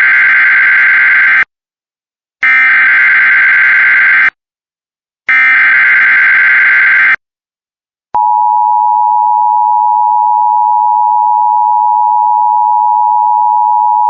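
Emergency Alert System SAME data header: three loud bursts of warbling digital screech, each about two seconds long, encoding a severe thunderstorm watch. About eight seconds in, a steady single-pitch weather-radio alert tone starts and holds.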